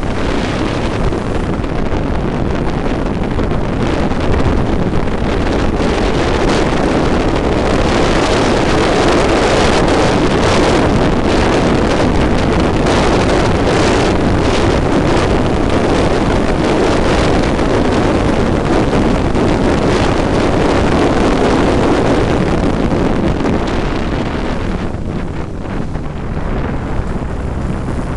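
Onboard sound of a Formula Monza 875 racing car at speed: a continuous rush of wind buffeting the microphone with the engine running hard underneath. It eases a little in the last few seconds.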